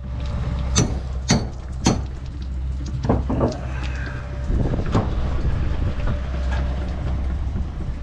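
A steady low rumble with several sharp knocks: three in quick succession around the first second, then a few more spread over the next few seconds.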